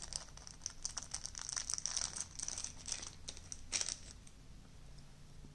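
Small clear plastic packet crinkling as fingers open it and work inside it, a quick run of small crackles that dies down after about four seconds.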